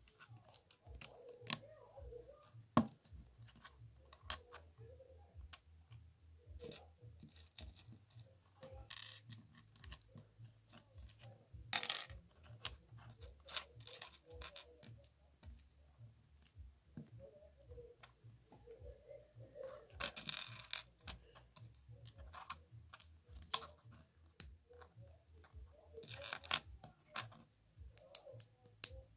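Small plastic LEGO pieces being handled and pressed together: scattered sharp clicks, with a few longer clattering stretches at about 12, 20 and 26 seconds in.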